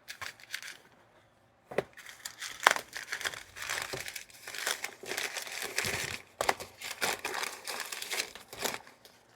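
Paper packing crumpled and rustled as it is pulled out of a shipping box, a dense crackling with many small sharp crinkles, after a brief pause about a second in.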